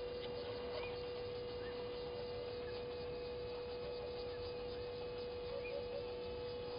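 A steady hum on one unchanging mid-pitched tone over faint background hiss, with a few faint, short bird chirps scattered through it.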